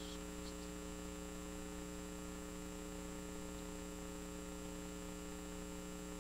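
Steady electrical mains hum with a stack of overtones, unchanging throughout.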